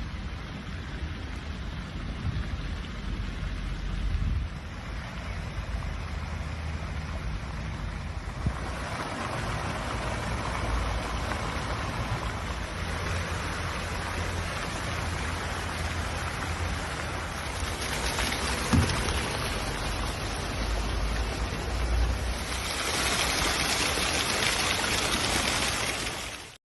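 Water from an ornamental fountain splashing into its basin: a steady rushing that grows louder about a third of the way in and again near the end, over a low rumble, with one brief thump about two-thirds through.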